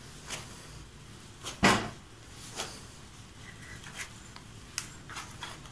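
Wheat-flour parotta dough kneaded by hand on a countertop: a few soft, irregular knocks and thumps as the dough is pressed, stretched and pushed against the counter, the loudest about one and a half seconds in.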